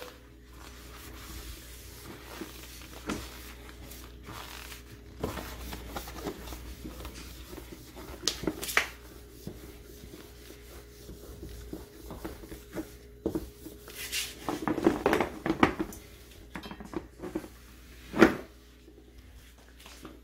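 Paper towel rubbing and wiping a kennel's floor tray, with rustling and a few sharp knocks of the tray, the loudest near the end. A faint steady hum lies underneath.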